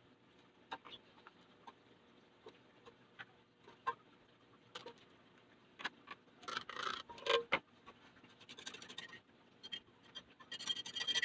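Light scattered taps and clicks of a plastic measuring cup against a glass mixing bowl and tin pans as thick cassava batter is scooped out, with denser scraping about six and a half seconds in and again near the end as the bowl is tipped and scraped out into a foil pan.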